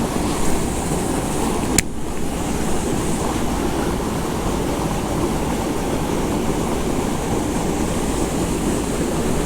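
Steady rush of water from a discharge pipe pouring into the pond, a constant noisy wash with no break. A single sharp click sounds about two seconds in.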